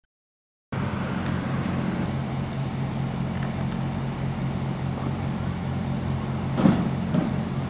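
A steady low hum with outdoor background noise cuts in abruptly after a moment of silence. A brief louder noise comes about seven seconds in.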